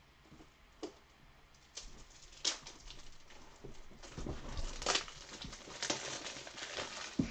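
Handling noise from a new pack of plastic trading-card top loaders being opened and sorted: scattered light clicks and rustling that get busier after the first couple of seconds.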